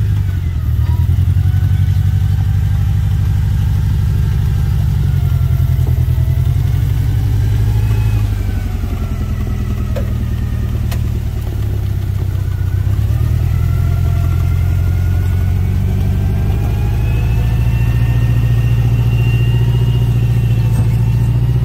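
Lifted Toyota pickup's engine running at low crawling speed under load, its pitch rising and falling with the throttle as it works over a rough dirt climb. A fainter whine glides up and down with it and climbs near the end.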